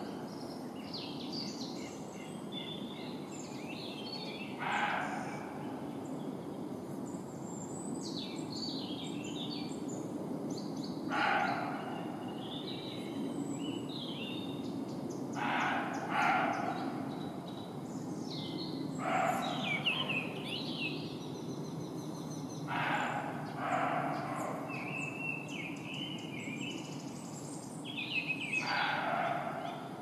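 Roe deer barking: about eight short barks spaced several seconds apart, some coming in pairs, with birds chirping between them.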